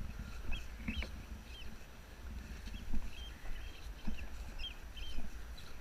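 Footsteps through long grass with low wind rumble on the microphone, while a small bird chirps over and over in short, high notes.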